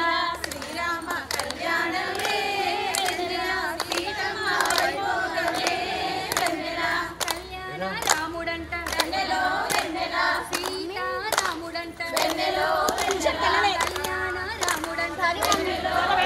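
A group of women singing a devotional song together in unison, clapping their hands to a steady beat.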